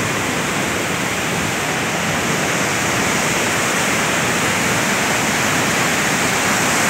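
River in flood after heavy rain, its fast, turbulent muddy current rushing past: a steady, loud rush of water that grows slightly louder toward the end.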